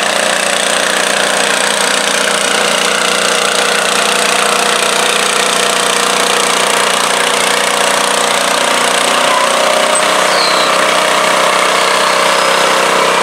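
Garden tractor engine with twin upright exhaust stacks running steadily under load as it drags a stoneboat sled in a pull.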